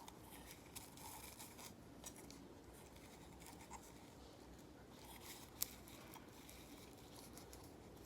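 Near silence with faint scattered rustling and scratching, and one sharp click about five and a half seconds in.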